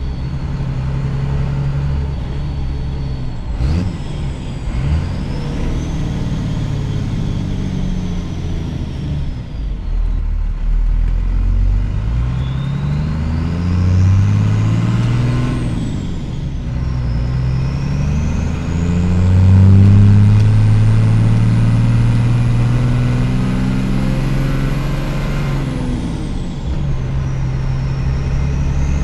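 1st gen Cummins 12-valve inline-six diesel running under load with an upgraded 10-blade turbine wheel in its turbo, the turbo's high whistle rising and falling with the engine revs several times. The whistle climbs highest about two-thirds of the way through, then drops sharply as the engine comes off.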